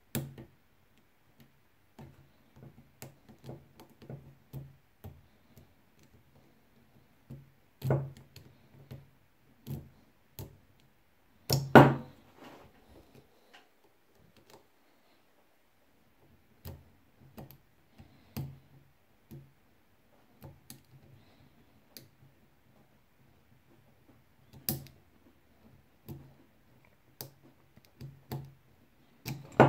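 Metal lock pick and tension wrench working in a 4-pin ABUS CISA euro profile lock cylinder: irregular light clicks and ticks as the pin stacks are lifted, with a few louder knocks, the loudest about twelve seconds in and at the very end.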